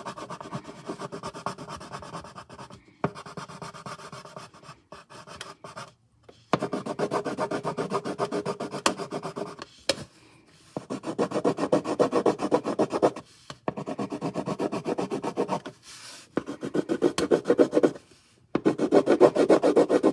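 Coloured pencil shading on paper: quick back-and-forth scratchy strokes in runs of a few seconds, with short pauses between runs.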